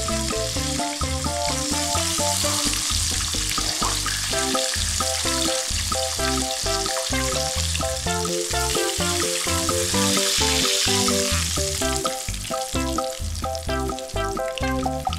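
Breaded chicken cordon bleu rolls deep-frying in hot oil, a steady crackling sizzle throughout. Background music with a rhythmic bass plays over it.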